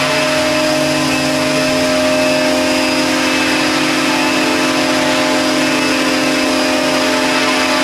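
Radio-controlled scale MD 500E helicopter hovering, its motor and rotor blades running at a constant speed with a loud, steady hum.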